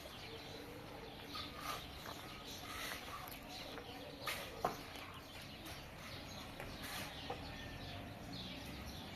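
Chickens clucking faintly, with a few short knocks scattered through.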